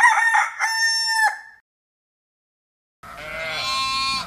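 Rooster crowing once, a full cock-a-doodle-doo that ends about a second and a half in. About three seconds in, a second long, loud animal call begins.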